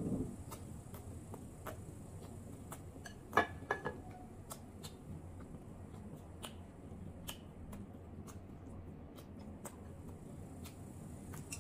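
Close-miked eating: soft chewing and mouth sounds with scattered sharp clicks of chopsticks and a spoon against dishes and a glass bowl, and a quick cluster of louder clicks about three and a half seconds in.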